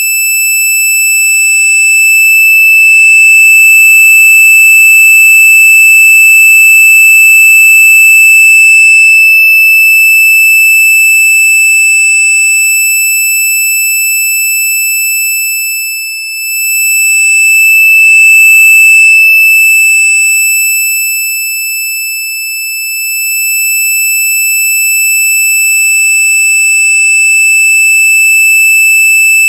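A continuous, very loud, high-pitched electronic tone held at one pitch, a shrill sound effect made to be as annoying as possible. Its loudness swells and dips briefly about halfway through, and again a few seconds later.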